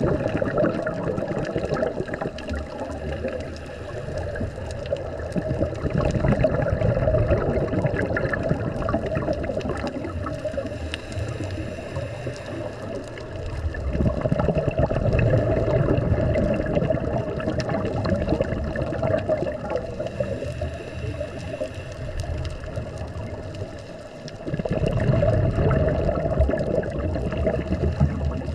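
Underwater sound of a scuba diver's regulator: exhaled bubbles gurgle in several long swells, with quieter breathing between them.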